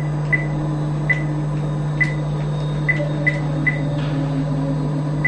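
Steady low electrical hum, with about seven short, high beeps at irregular intervals.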